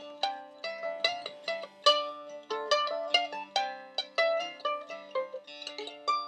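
Mandolin playing an instrumental ending, a run of quick plucked notes over a low held accompaniment, with a last note left ringing near the end.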